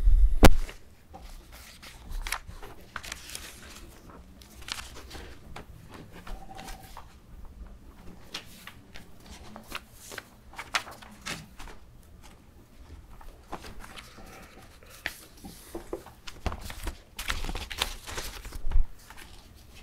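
A sharp thump right at the start, then scattered small knocks, clicks and rustles of things being handled close to a microphone in a small room, with a low hum underneath.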